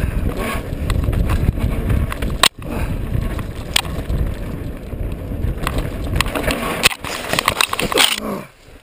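Mountain bike rattling down a rough, rocky dirt trail, with tyres crunching over rock and gravel and wind on the microphone. Near the end comes a crash: a quick flurry of knocks and scraping as bike and rider go down, after which the riding noise stops abruptly.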